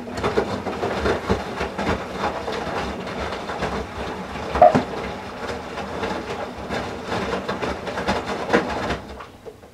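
Whirlpool Duet WFW97HEDC direct-drive front-loading washer tumbling wet towels in the final rinse, with water sloshing and towels dropping against the drum. The drum turns for about nine seconds, with one heavier thump about halfway, and stops near the end.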